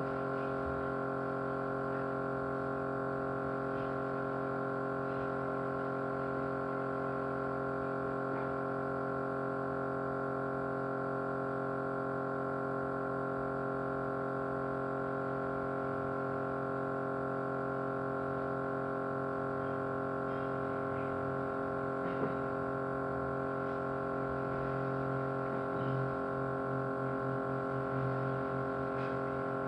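Small motor running with a steady vibrating hum. About 25 seconds in, a rapid fluttering rattle comes in on its low note.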